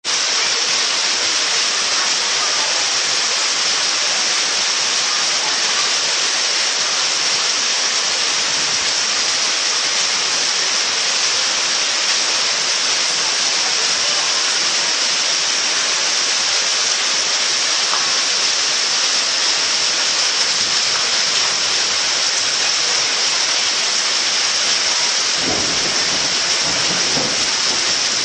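A steady, loud hiss that starts suddenly and does not vary, strongest high up; a lower rumble joins it about 25 seconds in.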